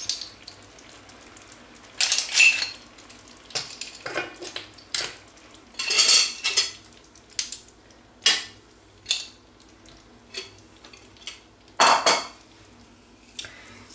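Opened cockle shells clicking and clacking against one another and the frying pan as they are set one by one onto the hake, in irregular bursts with a few louder clatters.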